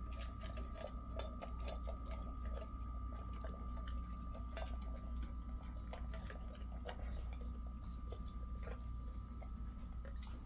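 Jindo dog eating dry kibble from a stainless steel bowl: irregular crunching and small clicks of kibble against the metal, thinning out after the first couple of seconds.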